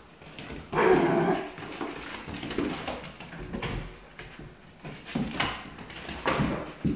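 Dog barking and whining in a string of short bursts; the loudest comes about a second in, followed by several shorter ones.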